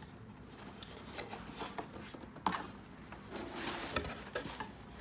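Cardboard shipping box being handled and its flaps opened: scattered taps, scrapes and rustles of cardboard, with a sharper knock about two and a half seconds in.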